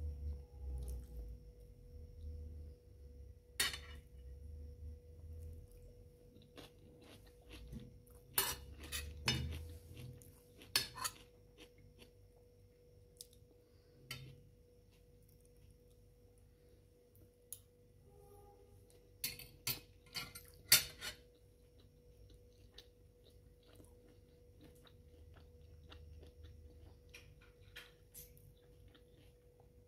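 Metal fork and spoon clinking and scraping against a ceramic plate as rice is scooped: scattered sharp clicks, the loudest cluster about two-thirds of the way through. A faint steady hum runs underneath.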